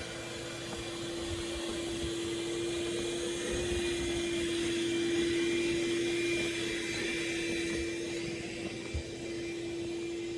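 A steady mechanical drone with one held humming tone under a rushing, air-like hiss. It swells to a peak about halfway through and then eases off.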